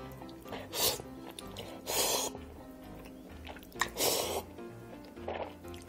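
Noodles being slurped and eaten from a bowl with chopsticks: four short slurps, about one, two and four seconds in and again near the end, over quiet background music.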